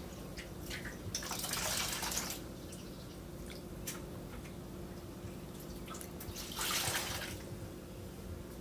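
Water from a household leak dripping irregularly, with two louder stretches of rushing noise, one about a second in and one near seven seconds, over a low steady hum.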